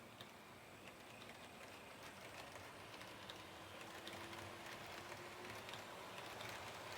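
HO gauge model train running on the track. Its motor gives a faint whine that slowly rises in pitch, with scattered light clicks, and grows gradually louder.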